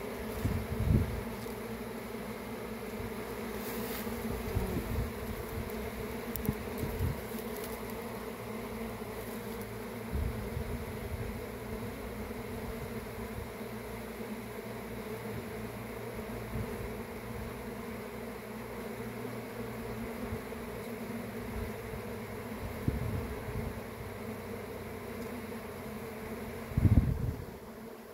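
Honeybee colony buzzing steadily on and around an open hive frame of comb. A few low thumps break through, the loudest near the end.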